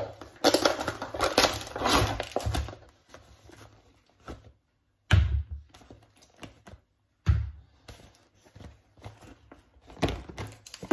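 Thin plastic food tub crackling as raw turkey slices are pulled out of it, followed by a few dull thuds as the slices are dropped onto a plastic cutting board, about two seconds apart.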